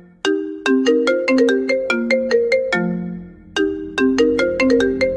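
A ringtone plays a short melody of quick, separate notes. The phrase ends about three seconds in and starts over after a brief pause.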